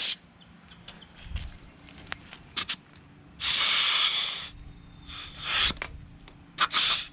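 Compressed air hissing from an air chuck on a go-kart tire's valve stem in four short bursts, the longest a little over a second, without enough pressure from the compressor to fill the tire.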